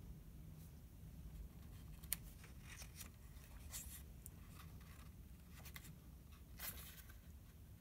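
Near silence: low room hum with a few faint rustles and ticks as fingers brush the page of a hardcover picture book.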